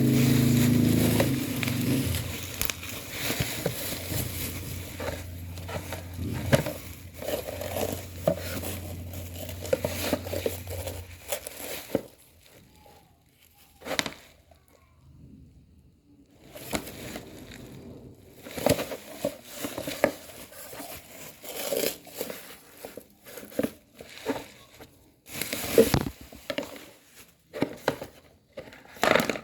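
Packaging being handled and opened: crinkling and rustling with irregular clicks and knocks. A low steady hum underlies the first twelve seconds or so, after which the handling comes in separate spurts with short pauses.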